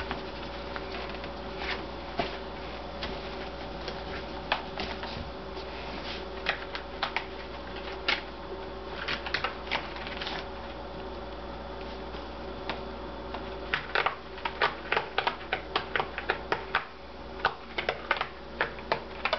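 A cat's claws scratching and raking at a scratching pad: irregular sharp, clicky scrapes, sparse at first and coming quickly, several a second, in the last few seconds.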